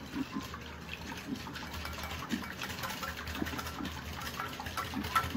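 Hand whisk beating a milk, yogurt and vanilla mixture in a glass bowl: continuous sloshing of the liquid with many quick light clicks of the whisk against the glass.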